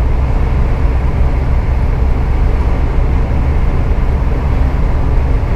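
Steady low engine drone and road noise inside a Scania truck's cab while it drives along at speed.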